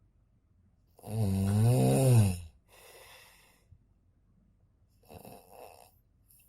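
A sleeping person snoring loudly. One loud, pitched snore lasts about a second and a half, followed by a softer breathy breath, and another soft breath about five seconds in.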